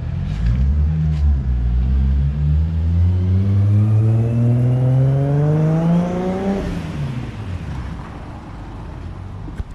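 A motor vehicle's engine accelerating, its pitch climbing steadily for about six seconds, then dropping away as it fades.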